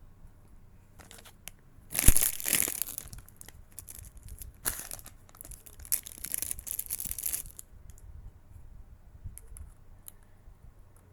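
Blind-box packaging being torn open by hand: a loud rip about two seconds in, then more rips and crinkling over the next few seconds, with a few faint clicks near the end.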